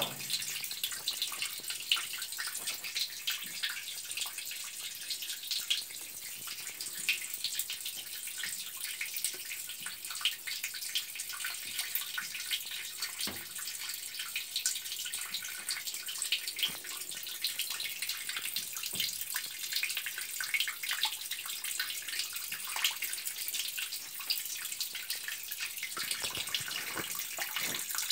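Water steadily hissing and spattering from a leaking pipe flange joint that has been bound with rope.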